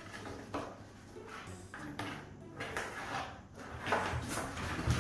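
Two kittens scuffling around a cardboard box: irregular knocks, taps and scratching of paws and claws on cardboard and a wooden floor, busiest about four seconds in.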